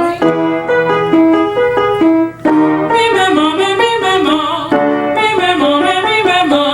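Piano playing the short repeating warm-up pattern of a vocal exercise. In the second half a voice with vibrato sings the 'me, me, ma' exercise over it.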